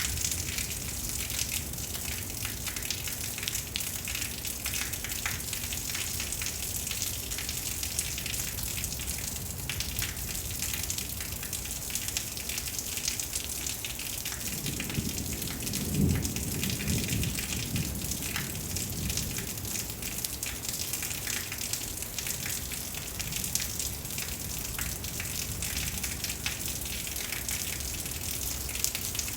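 Steady heavy rain with a constant patter of drops. About halfway through, a low rumble of thunder swells for a few seconds and fades.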